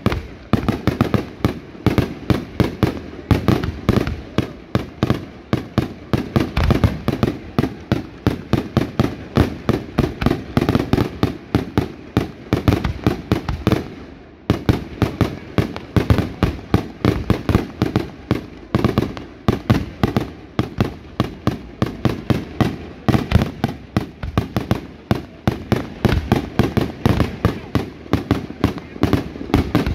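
Fireworks going off in a rapid, continuous string of sharp bangs, several a second, with a brief break about fourteen seconds in.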